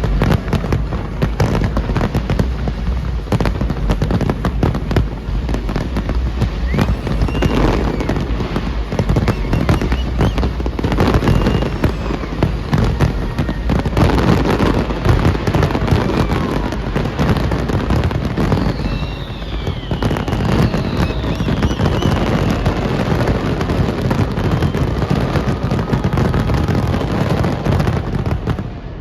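A large fireworks display bursting in a dense, continuous barrage of bangs and crackles, with a few whistling shells gliding in pitch about two-thirds of the way through. The barrage drops off suddenly at the very end.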